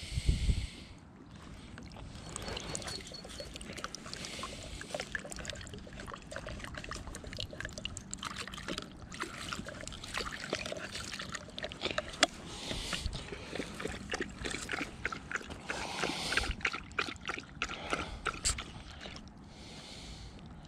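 English springer spaniel puppy lapping water from a cup: a long run of small wet clicks and splashes.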